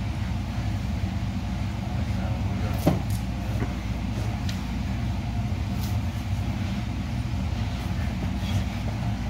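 Grappling on a gym mat under a steady low rumble of room noise, with scuffing and a sharp knock about three seconds in.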